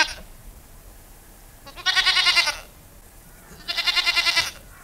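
Two wavering, goat-like bleating calls, each a little under a second long and about two seconds apart.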